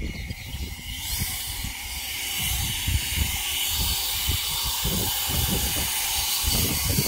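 Ego battery-powered cordless leaf blower running, a steady airy rushing hiss that comes up over the first second and holds, with an uneven low rumble underneath.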